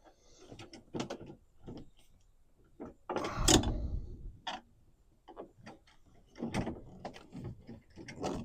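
Scattered clicks and knocks of hands and a flathead screwdriver working on a refrigerator drawer's bracket screws, with one louder clunk about three and a half seconds in.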